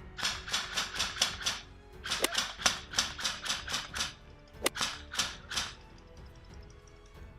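Airsoft gun firing rapid shots, about five a second, in three strings: a long one at the start, a longer one from about two seconds in, and a short one about five seconds in.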